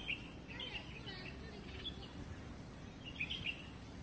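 Birds chirping: several short high twittering phrases, the most at about three and a half seconds in, over a low steady background noise.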